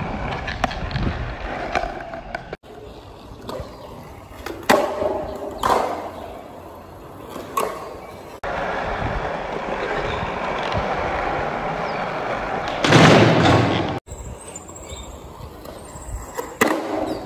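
Skateboard wheels rolling on a smooth concrete court, with sharp wooden clacks of the board popping and landing as tricks are tried, spread over a few short clips. Near the end of the longest rolling stretch there is one louder burst.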